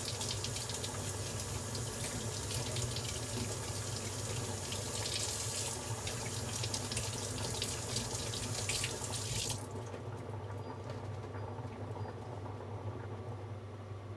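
Kitchen water tap running into a sink for about nine and a half seconds, then shut off abruptly.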